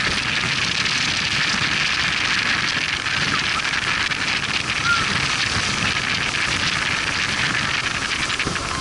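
Power boat under way: a steady rush of wind buffeting the microphone and water against the hull, over the low rumble of the engine.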